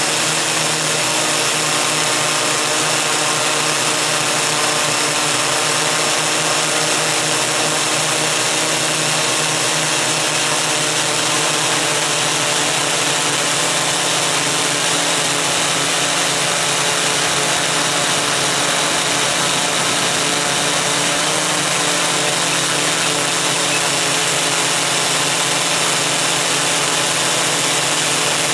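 Electric motors and propellers of a MikroKopter Koax-Quadro X8 multicopter (eight rotors in four coaxial pairs) in flight, heard from the camera it carries: a steady whine of several pitches over a constant rush of propeller wash.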